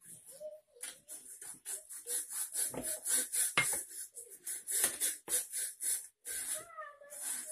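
Long wooden rolling pin rolling out flour-dusted dough on a wooden tabletop: quick back-and-forth strokes, about three a second, each a dry swish, with a sharper knock about three and a half seconds in. A faint high whine comes in briefly near the start and again near the end.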